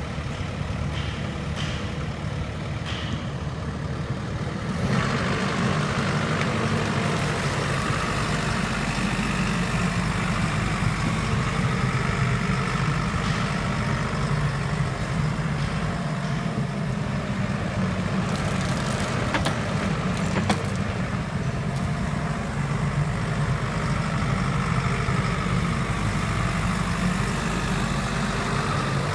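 JCB JS130 tracked excavator's diesel engine running steadily, growing louder and fuller about five seconds in as the machine slews and works its boom. A few light clicks are heard near the start and again a little past the middle.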